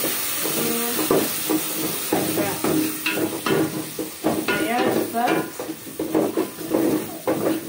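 Beef and onions sizzling in an aluminium pot as broth hits the hot pan, with a wooden spoon stirring and scraping against the pot in quick repeated strokes.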